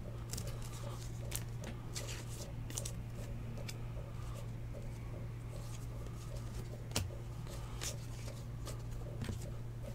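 Panini Legacy football trading cards being handled and flipped through by hand: soft scattered card flicks and rustles, with one sharper click about seven seconds in, over a steady low hum.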